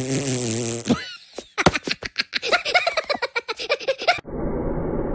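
Cartoon Minions' voices: a drawn-out vocal sound, then rapid fits of giggling laughter. A little after four seconds in it cuts abruptly to a car engine running steadily.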